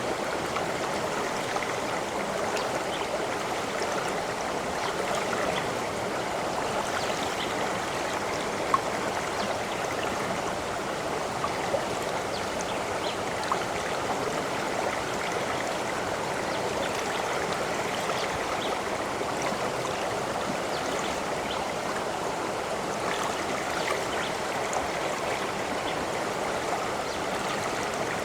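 Flowing water, a steady rushing and burbling stream, with a few brief drips or splashes standing out, the clearest about nine seconds in.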